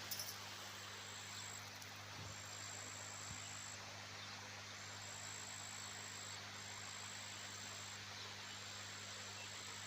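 Faint high-pitched insect trilling, in long trills of a second or two broken by short gaps, over a steady hiss and low hum.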